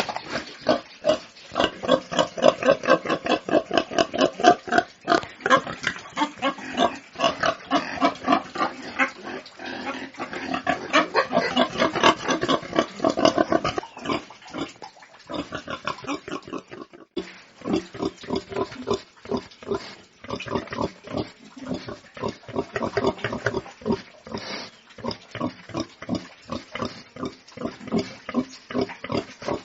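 Domestic pigs grunting: a dense, continuous run of short grunts, several a second, easing briefly about halfway through before picking up again.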